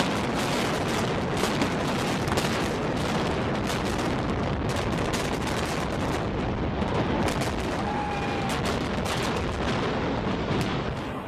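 Demolition noise: a steady rumble with many sharp cracks and pops scattered through it, as of a structure and its debris breaking up and falling.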